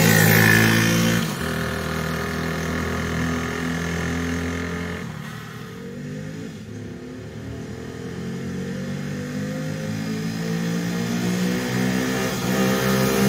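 2007 Redcat 90cc ATV engine revving under load as it is ridden, its pitch rising and falling with the throttle. It fades as the machine moves off, quietest around the middle, and grows louder again as it comes back toward the end.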